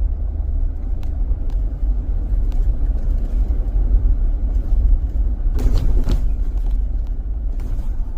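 A car driving, a steady low rumble of road and engine noise, with a brief clatter a little under six seconds in.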